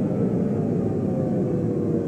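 Low, steady rumbling drone with a few held tones above it that slowly fall in pitch.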